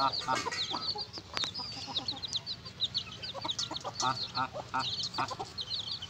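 Aseel chicks peeping continuously, many short high calls a second, with an aseel hen giving a few low clucks.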